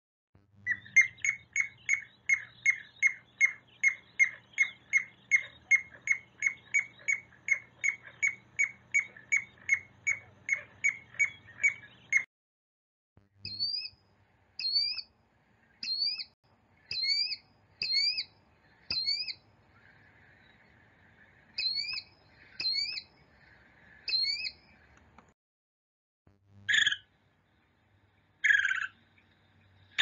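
Recorded bird calls: a piping plover giving a rapid, even series of clear piping whistles, about three a second, for about twelve seconds. After a short pause, a killdeer calls with short rising notes about once a second, followed by two short louder calls near the end.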